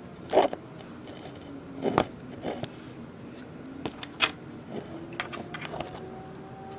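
Objects being handled at a workbench: several sharp clicks and knocks with some scraping, the loudest near the start and about four seconds in, then a quick run of small ticks, over a faint steady hum.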